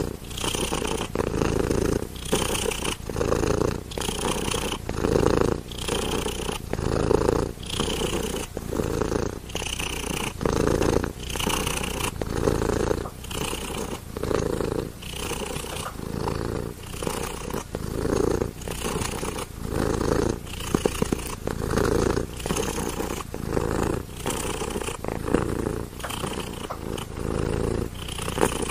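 Domestic cat purring close to the microphone, rising and falling with its breaths at a little more than one pulse a second.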